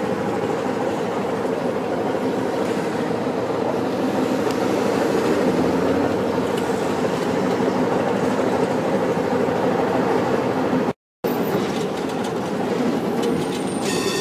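Steady rumble of a moving tram on street rails, heard from aboard through an open window. The sound cuts out for a moment about eleven seconds in, and near the end a brief high-pitched tone rings over the rumble.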